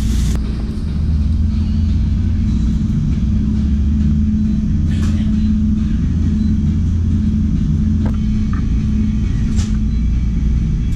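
Steady low rumble with a constant hum under it. A plastic bag rustles at the start, and a few brief clicks and rustles from handling the bag and the food box follow later.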